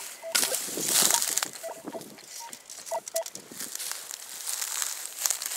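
Dry grass and nettle stalks crunching and rustling as a shovel digs at a metal detector signal, with the loudest stretch about a second in. Short metal detector beeps sound now and then.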